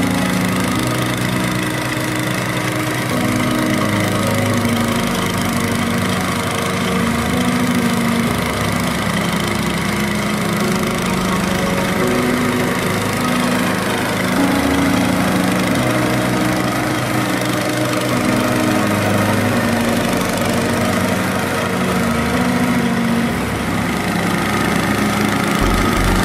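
Briggs & Stratton four-stroke engine of a walk-behind flail mulcher running steadily, its note rising and falling a little every few seconds.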